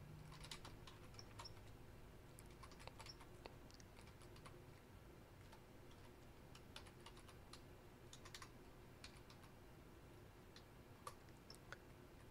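Faint typing on a computer keyboard: scattered key clicks in short runs, over a low steady hum.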